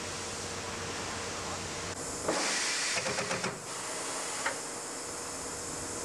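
Fuel valve pressure-test rig hissing steadily under high pressure. About two seconds in, a louder, fluttering hiss starts and lasts about a second and a half, and a short tick follows a second later.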